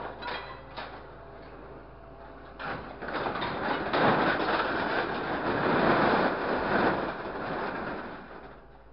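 Scrap sheet metal panels clattering and crashing into a steel container bed as the hydraulic grapple releases its load. The rattle is loudest from about three to eight seconds in, over a steady low machine hum.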